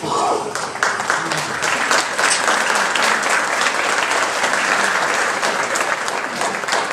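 Audience applauding, breaking out suddenly and holding strong throughout.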